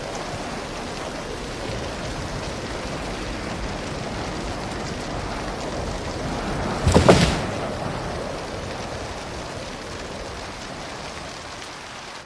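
Heavy rain falling steadily, with one sharp clap of thunder about seven seconds in that dies away over about a second.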